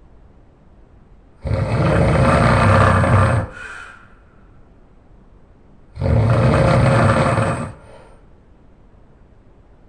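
A man snoring very loud: two long, rough snores about four and a half seconds apart, each lasting about two seconds and trailing off briefly, with quiet between them.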